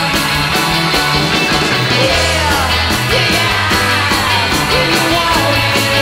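A garage-style rock band playing a song: drums, a moving bass line and electric guitar, with notes sliding up and down in pitch.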